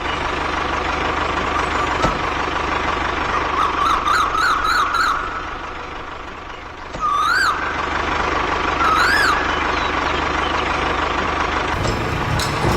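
Steady whir of a toy RC vehicle's motor, with short warbling siren-like chirps about four seconds in and twice more later.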